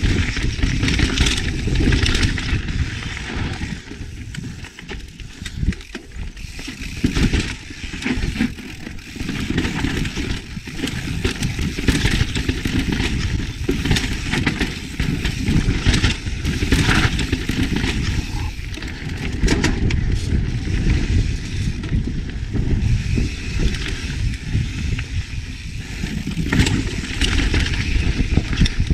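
Yeti SB150 full-suspension mountain bike descending a rocky dirt trail: tyres rolling over rock and dirt, with frequent knocks and rattles from the bike over the rough ground, and a steady rush of wind on the microphone.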